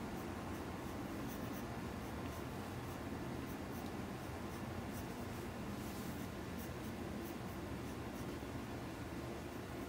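Graphite pencil scratching on paper in short, irregular strokes as small squares are drawn, over a steady low room hum.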